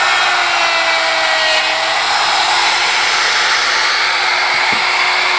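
Electric router with a laminate plunge-trim bit running steadily at full speed, cutting through plastic laminate on particle board around a hole. A steady high-pitched motor whine carries over the cutting noise.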